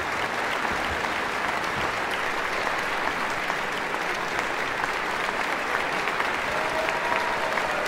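Concert-hall audience applauding, a dense, even clapping that holds steady throughout.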